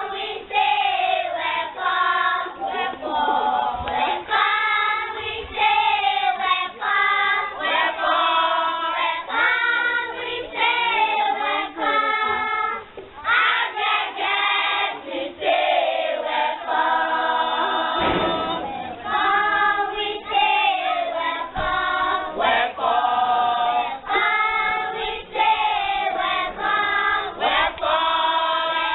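A group of young children singing together as a choir, one sung phrase after another.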